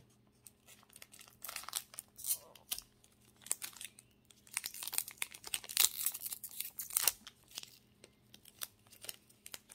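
Foil Pokémon card booster pack crinkling and tearing as it is opened by hand, with cards rubbing against each other. There is an irregular run of sharp crackles and rips, loudest about halfway through.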